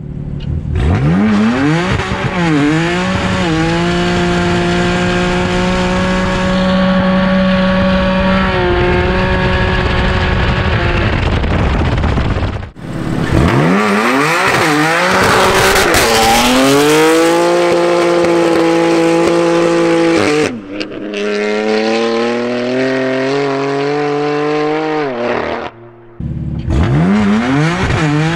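BMW M3 F80's twin-turbo straight-six, with a straight-piped exhaust, revving hard and held at high, steady revs for several seconds at a time while the tyres spin and squeal. The sound cuts off suddenly a few times and starts again.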